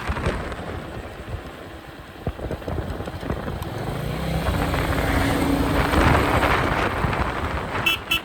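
Royal Enfield Meteor 350's single-cylinder engine and exhaust running at road speed, mixed with wind noise on the microphone; the engine grows louder from about halfway through as the bike pulls harder. Two short sharp sounds come near the end.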